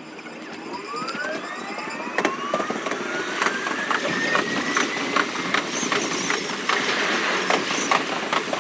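Electric commuter train pulling away and gathering speed, heard from the cab and sped up four times: the traction motors' whine rises steadily in pitch, over quickening clacks of the wheels on rail joints.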